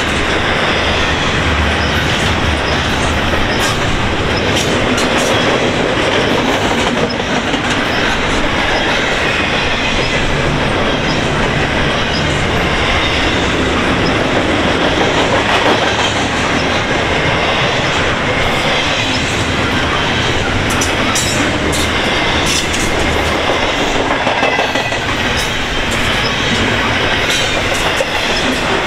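Double-stack intermodal well cars rolling past close by: a loud, steady rumble of steel wheels on rail, with rapid clicks throughout.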